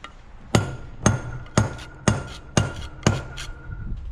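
Hammer blows, about two a second and seven in all, each with a short metallic ring; the last comes quickly after the one before and is lighter.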